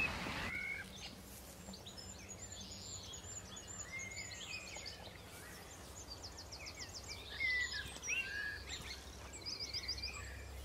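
Small songbirds singing: scattered chirps, whistled phrases and a couple of rapid trills, over a faint steady low hum.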